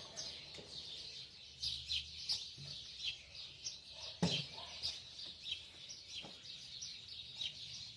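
Small birds chirping outside, many short high chirps coming one after another, with a single knock about four seconds in.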